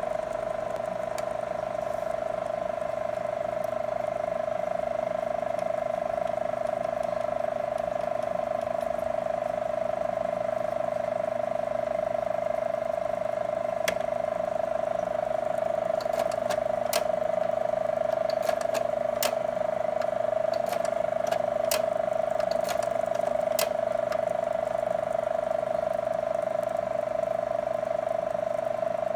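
Kodak Carousel slide projector running with a steady hum from its cooling fan. From about halfway through come a dozen or so sharp mechanical clicks while the slide tray is worked by hand.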